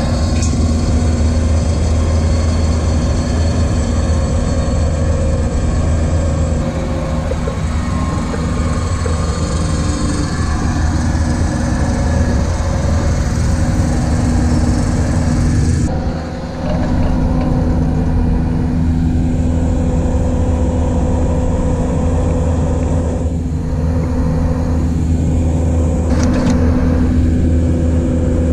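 Bobcat tracked skid steer's engine running steadily under load, driving a hydraulic drive head that screws a helical pier into the ground. A few knocks come near the end.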